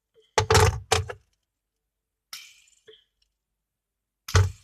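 A few loud thumps and a rattle close to the microphone: a double knock about half a second in, a softer scraping clatter midway, and another knock near the end.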